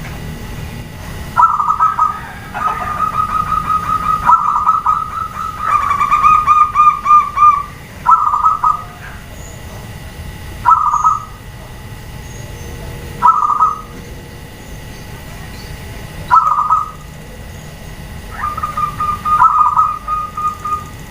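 Zebra doves cooing: long rapid staccato trills on one pitch, then short separate coo phrases repeated about every two to three seconds, with the trills picking up again near the end.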